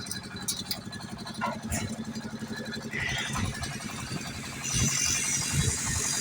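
An engine running steadily with an even, pulsing hum. A hissing noise joins about three seconds in and grows louder near the end.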